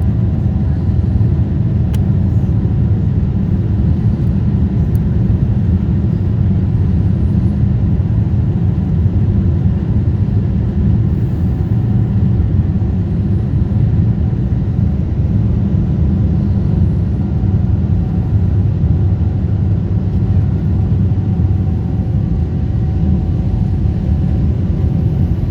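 Steady low rumble of an Airbus A340 airliner, with a few faint steady tones above it.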